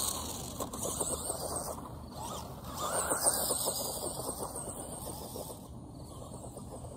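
Tamiya Grasshopper II RC buggy's 23-turn brushed electric motor whining, rising and falling in pitch as the throttle changes, with a crackly rattle as the buggy runs over grass.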